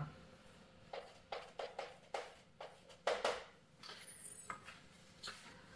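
Chalk writing on a blackboard: a string of faint, brief taps and scrapes, most of them in the first half.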